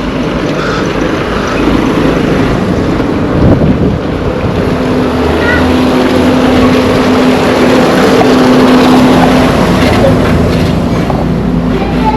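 A motor vehicle's engine running as it passes close by, growing louder over several seconds and easing off near the end.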